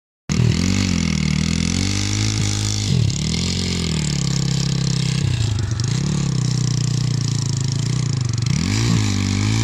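Pit bike's single-cylinder engine riding hard, its revs dropping and climbing back up three times as the throttle comes off and back on. A steady hiss runs underneath.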